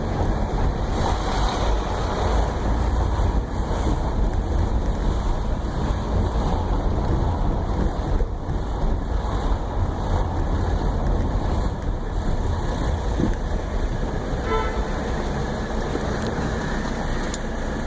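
1984 Mercedes-Benz 300CD's five-cylinder turbodiesel engine and road noise while driving, a steady low rumble, with a short horn toot about 14 seconds in.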